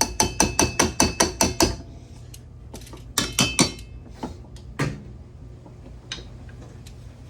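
A metal kitchen utensil rapped sharply and quickly on the rim of a metal pot, about five ringing knocks a second for nine strokes, which knocks mashed potato off the utensil. A second short flurry of knocks follows a moment later, then a single knock.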